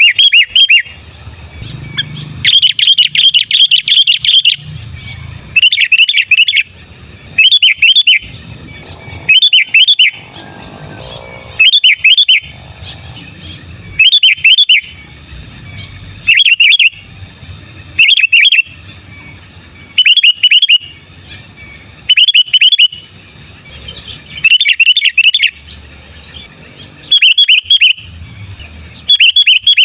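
Sooty-headed bulbul (kutilang) singing: short phrases of quick rising-and-falling notes, repeated about every two seconds, over a faint steady high hiss.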